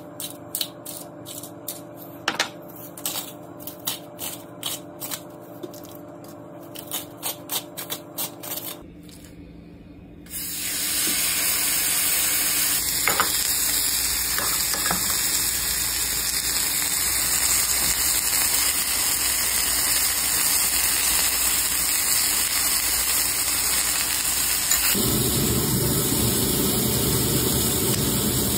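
A hand pepper mill grinding in a run of short crackling strokes. Then, from about ten seconds in, a veal rib chop sizzling steadily on a hot grill pan, growing fuller for the last few seconds.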